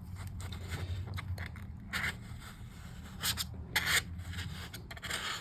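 Razor blade scraping burnt residue off plastic laptop keycaps softened with WD-40, in a few short scraping strokes, the clearest about two, three and four seconds in.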